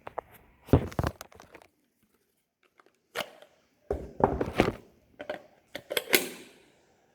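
Handling knocks and scrapes of plastic parts: a battery pack being taken off and clicked onto a cordless angle grinder, in several separate clatters with pauses between them. The grinder motor is not running.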